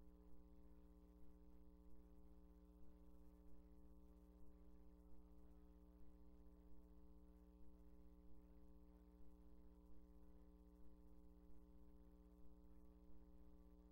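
Near silence: a steady electrical mains hum with faint regular pulses, with no music or voices audible.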